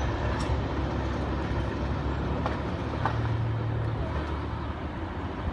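Steady low rumble of vehicle engines and traffic, with a low engine hum swelling for about a second roughly three seconds in.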